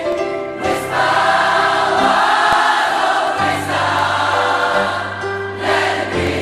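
Gospel-style choir singing held chords without words over a musical accompaniment; a low bass note comes in about halfway through.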